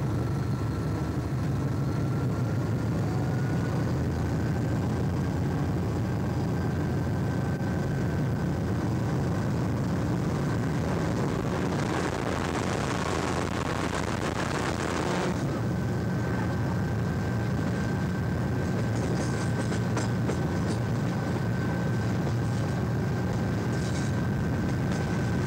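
Hastings diesel-electric multiple unit running, heard from an open window: a steady rumble of engine and wheels with a thin high whine that rises slightly in the first few seconds, then holds. For a few seconds around the middle the noise swells into a louder hiss as the train passes under a wide overbridge. Near the end there are sharp clicks of the wheels running over points.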